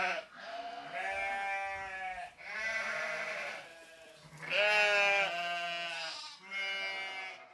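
Angora goat bleating over and over: a run of long calls, each lasting one to two seconds, with short breaks between.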